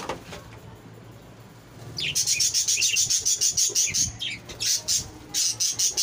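Budgerigar chicks calling: a fast, even run of high chirps, about seven a second, starting about two seconds in and breaking off briefly twice.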